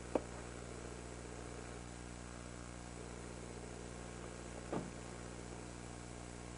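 A steady low hum, broken by two brief knocks: one just after the start and one about five seconds in.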